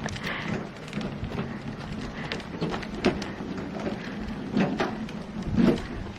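Oak firewood knocking and clattering as split logs are handled, with irregular wooden knocks and a few heavier thuds about three seconds in and near the end.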